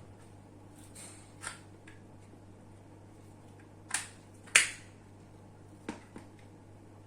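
A few sharp clicks and taps of handling, the loudest about four and a half seconds in, over a steady low hum.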